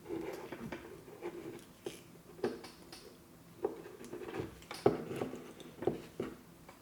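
Scattered light clicks and taps from handling the parts of an electrical plug being rewired, irregularly spaced, with a few sharper clicks about two and a half, five and six seconds in.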